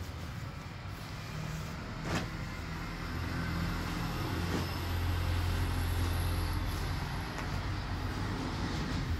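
Clothes being handled and flipped over on a pile, with a few light knocks, over a steady low rumble that grows louder through the middle.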